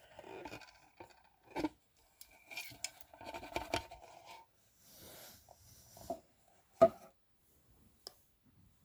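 Hands working a small speaker cabinet apart: scattered clicks, scrapes and rubbing of the parts, a short rustle about five seconds in, and a sharper click near the end.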